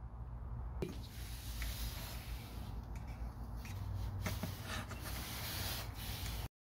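Faint rubbing of a folded paper towel along a rubber-encased window belt trim strip, wiping on rubber dressing, over a low steady hum. It cuts off abruptly near the end.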